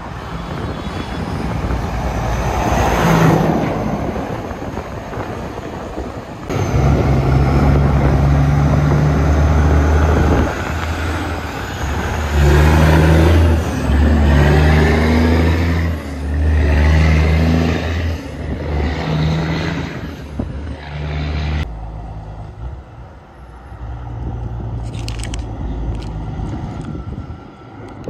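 Heavy diesel semi-truck passing close, its deep engine rumble swelling and dropping every second or two as it pulls by, after a nearer vehicle swells past early on. After a sudden cut near the end, a quieter truck engine rumbles in the distance.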